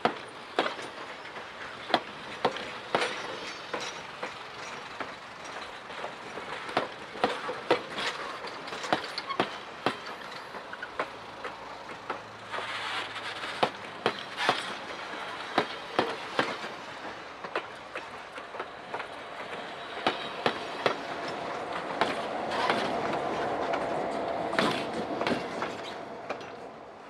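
Steel wheels of passing railroad passenger coaches clicking over the rail joints, the clicks often in pairs, over a steady rolling rumble. A ringing wheel squeal rises in the last several seconds, then the sound fades as the last car goes by.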